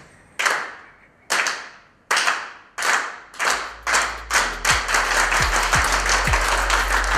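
A group clapping in unison: loud separate claps that speed up and run together into applause. Music with a heavy bass beat comes in about halfway.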